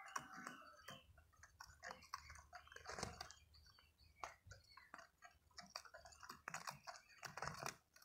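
Faint, irregular light clicks and taps, with no voice.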